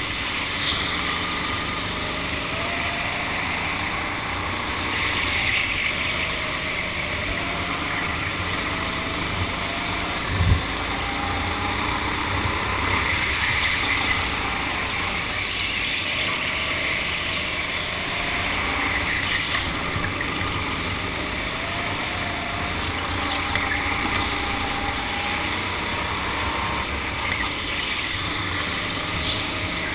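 Go-kart driving at speed, its motor's pitch rising again and again as it picks up speed, under a steady rushing noise. One short thump about ten seconds in.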